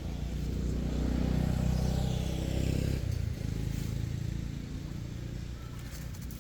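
A motor vehicle engine passing by, growing louder over the first two seconds, then fading away after about three seconds in.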